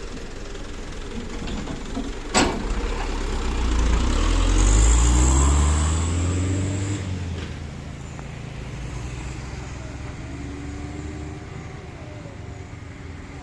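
A heavy diesel engine revs up and grows louder for a few seconds, with a hiss at its peak, then falls back to a steady run. A sharp knock comes about two seconds in.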